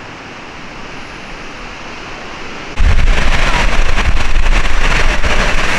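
Steady rushing of the Steinsdalsfossen waterfall, at first fainter, then much louder and deeper after a sudden jump about three seconds in.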